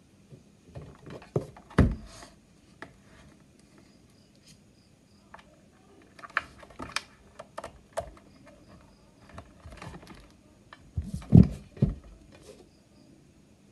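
Hands handling a packaging box and a glass bathroom scale: scattered light taps and clicks, with two louder knocks, one about two seconds in and another late on.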